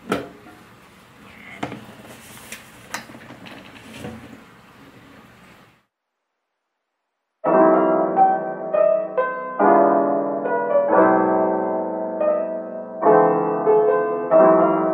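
The lid of a metal roll-top bread box shuts with a knock, followed by a few light clicks and taps as the box is handled. After a brief dead silence, soft piano music begins about halfway through and carries on.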